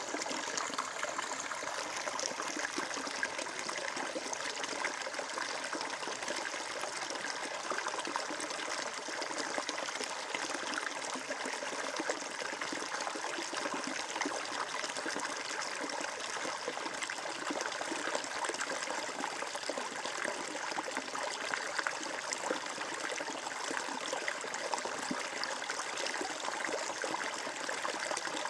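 Shallow stream water flowing and trickling steadily over stones.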